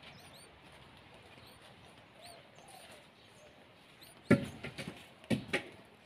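Yellow-vented bulbul nestlings cheeping faintly, with short high chirps repeated every half second or so. A few loud knocks come about four and five seconds in.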